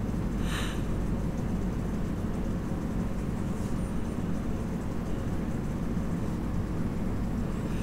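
Mushrooms and garlic frying in butter in a pan, a faint sizzle over a steady low rumble, with one brief scrape about half a second in.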